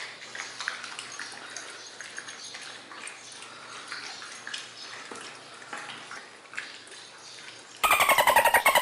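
Husky puppies eating together from one plate: faint quick clicks, licks and chewing as the kibble is picked at. Near the end a sudden, much louder pulsing buzz with a falling pitch cuts in.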